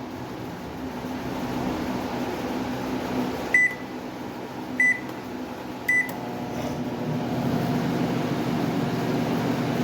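LG microwave oven: three short keypad beeps, then the oven starts up and runs with a steady hum that grows louder about seven seconds in. This is a test run on a newly fitted, smaller high-voltage transformer that replaced one overdriving the magnetron.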